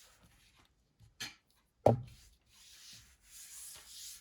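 A Nokia E71 mobile phone's casing being wiped and rubbed clean by hand, in soft hissy strokes. A short click comes just over a second in and a single sharp knock about two seconds in.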